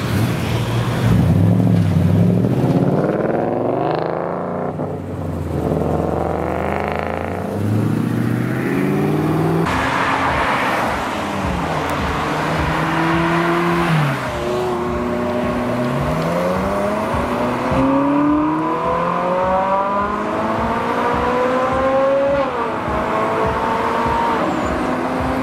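Cars pulling away from a car meet. First a Ford Mustang GT's 5.0 V8 rumbles and revs. Then a sports car accelerates hard through the gears, its pitch climbing and dropping back at each of three upshifts, ending with a Ferrari 458 Italia's V8 pulling away.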